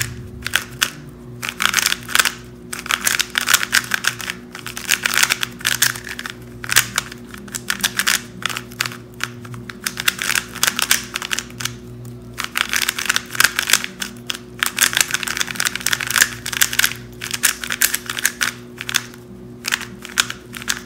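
Rapid clicking and clacking of a MoYu WeiLong GTS3 M magnetic 3x3 speedcube being turned fast, in bursts with a few short pauses. These are its first turns straight out of the box, before it is broken in.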